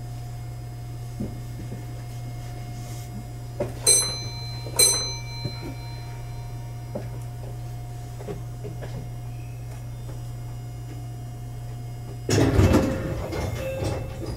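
Inside a stopped electric train car: a steady low hum of the car's equipment, two short metallic clinks about a second apart, then near the end the sliding doors closing with a thud.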